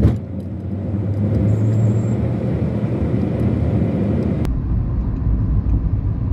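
Steady road and engine noise of a moving vehicle in traffic, heard from on board. About four and a half seconds in, the sound turns abruptly duller, with more low rumble.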